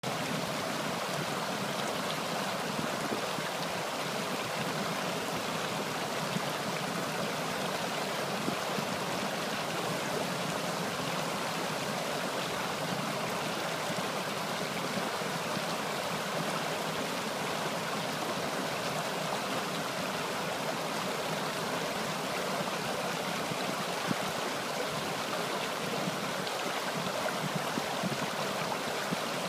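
Shallow man-made rocky stream, water rushing and splashing over stones in a steady, unbroken rush.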